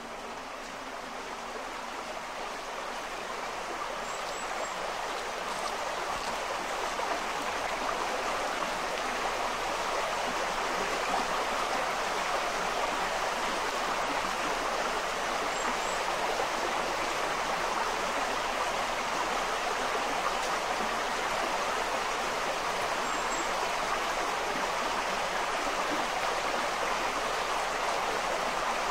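Forest brook rushing steadily over stones, growing louder during the first ten seconds or so, then holding steady.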